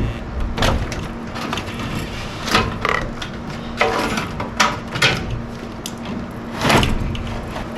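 Irregular knocks, clicks and scrapes of hands and tools working on furnace parts while the failed blower motor is being removed.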